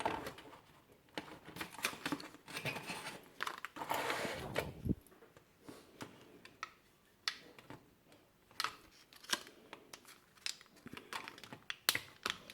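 Small sharp clicks and scrapes of the plastic case of a Toyota Camry key remote being handled and worked at to slide out its coin-cell battery, with a longer scraping rustle about four seconds in.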